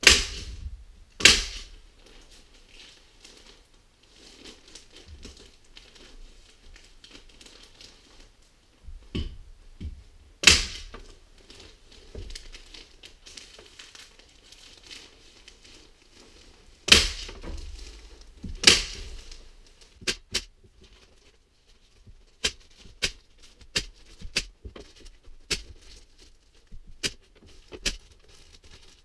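Pneumatic staple gun firing staples through the kraft-paper facing of fiberglass insulation batts into wooden studs. It gives a few loud, sharp shots spread over the first twenty seconds, with the paper facing crinkling in between, then a quicker run of lighter clicks near the end.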